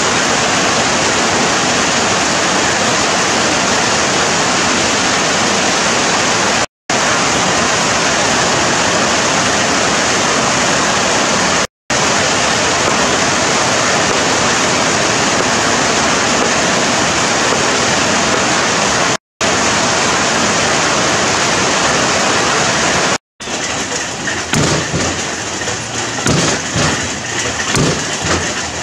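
Heavy rain pouring steadily onto banana leaves and a thatched roof, a dense even hiss broken by four brief cuts to silence. In the last few seconds the rain is quieter and uneven, with knocks of a cleaver on a wooden chopping board.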